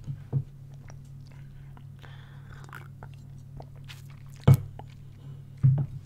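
Scattered small clicks and crackles close to the microphone over a steady low hum, with two sharper, louder knocks about four and a half and five and a half seconds in.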